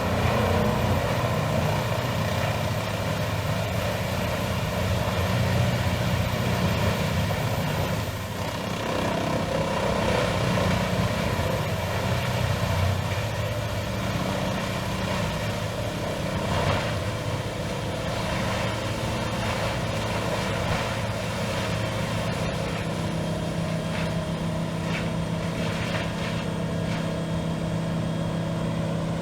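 Diesel engine of an industrial whole-tree shredder running steadily, with a thin high whine that drifts slightly in pitch above the engine drone and a few sharp cracks in the second half.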